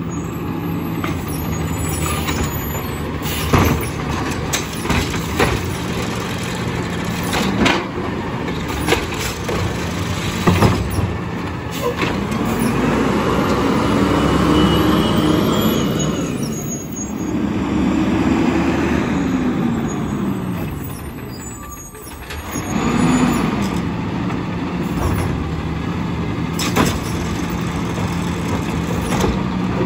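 Natural-gas-powered Peterbilt automated side-loader garbage truck running steadily, its engine revving up and falling back twice in the middle. Sharp air-brake hisses come several times as it creeps forward and stops.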